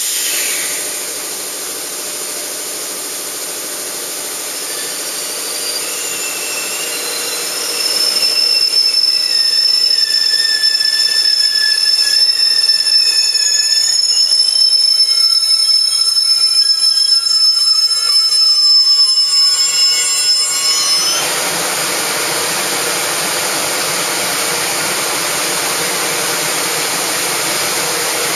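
EH500 electric freight locomotive and its container wagons arriving and braking to a stand. Several high, steady wheel-and-brake squeals set in about a third of the way through and last some thirteen seconds, cutting off suddenly as the train halts. After that the standing locomotive gives off a steady, even noise.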